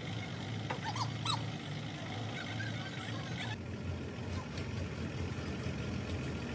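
Truck engine running steadily, a low hum while the truck-mounted crane holds the cab over the chassis, with a few short high squeals about a second in.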